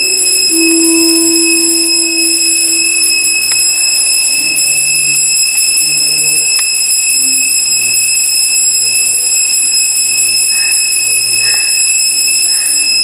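A steady high-pitched whine, the loudest thing throughout, over soft music of slow, held low notes.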